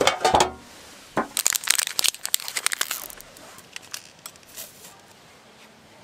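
A metal biscuit tin opened with a short clatter of the lid, then about two seconds of plastic wrappers crinkling as wrapped biscuits are handled, fading to a few small rustles.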